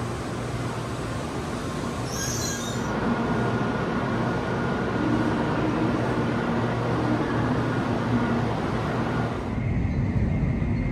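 Shinkansen train moving slowly through the station: a steady rumble with a thin, steady motor whine, and a brief high hiss about two seconds in. Near the end the higher hiss falls away and the low rumble carries on.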